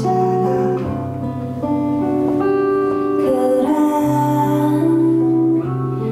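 A woman singing a slow song to her own acoustic guitar, the guitar strummed and picked under long held notes.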